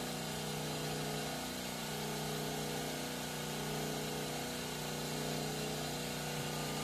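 Homemade motor-generator rig running steadily on battery power, a constant machine hum with several steady tones.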